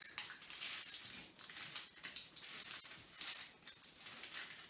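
Eggshells being cracked and crunched by hand: a run of small, crisp crackles and clicks.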